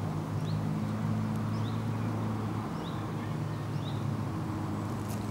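A steady low mechanical hum, with a bird giving a short rising chirp about four times over it.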